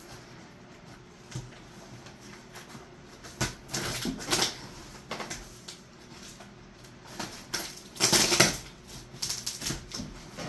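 A cardboard shipping box being opened and handled: irregular rustling and scraping. The two loudest bursts come about four seconds in and again about eight seconds in.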